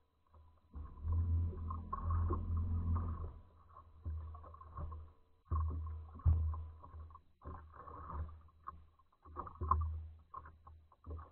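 Wind buffeting the microphone of a camera on a boat, coming as irregular low rumbling gusts, with small water slaps against the hull in between.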